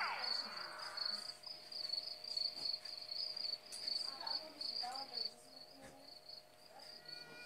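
Crickets trilling steadily in night ambience, fading out a little past halfway. A brief tone glides downward at the very start.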